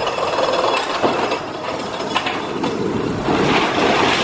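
Small steel kiddie roller coaster train rolling along its track: a running rumble of wheels on steel rail with a few sharp clacks, loudest from about three seconds in as the train passes closest.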